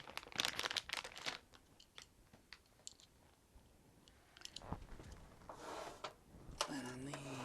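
Dense crackling and clicking of hard plastic parts being handled, thickest in the first second or so, then thinning to scattered single clicks. A short low hum-like tone comes near the end.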